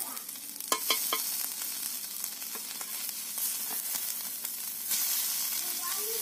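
Small whole fish sizzling in oil on a flat iron pan while a metal spatula scrapes and clinks against the pan, turning them. There are three sharp clinks about a second in.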